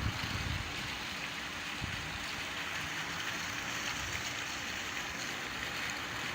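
Water fountain splashing with a steady, even rush of water.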